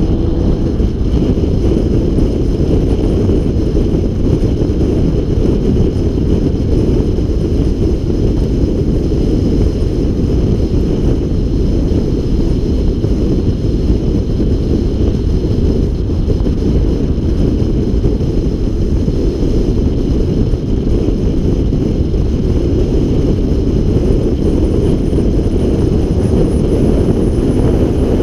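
Steady rush of wind buffeting a camera mounted on a car's bonnet at highway speed, with road and engine noise under it. An engine's rising note fades out just after the start.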